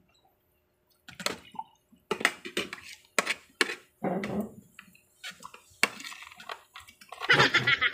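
Spoons and forks clicking and scraping against plates and bowls during a meal, a string of sharp taps beginning about a second in, with brief bits of voices about four seconds in and near the end.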